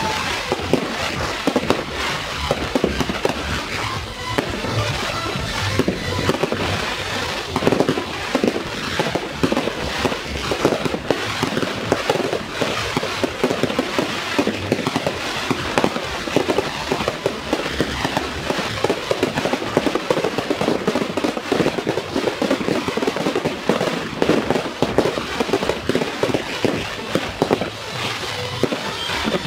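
Daytime aerial fireworks bursting overhead: a dense, unbroken run of crackling and popping from many shells and stars at once. Music plays underneath.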